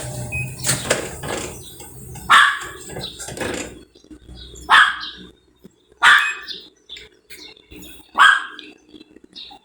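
A dog barking about five times, a second or two apart, over a low hum that stops about four seconds in.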